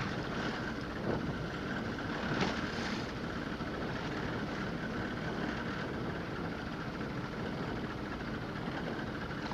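Steady running of a fishing boat's engine, with wind and water noise; two short knocks come about one and two and a half seconds in.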